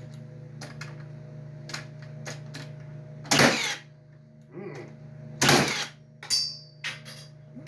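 Handling clatter of metal tool parts: a few sharp clicks, two short loud rattling scrapes, and a click with a brief high metallic ring near the end, over a steady low hum.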